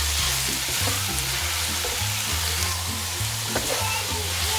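Minced meat and vegetables sizzling in a hot non-stick wok while being stirred with a wooden spatula, a steady frying hiss. Background music with a bass line plays underneath.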